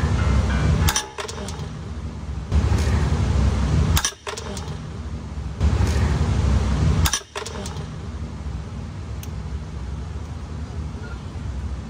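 Ratchet and extension straining on a seized, rusty transmission-mount bolt: three efforts of about a second and a half each, every one ending in a sharp click.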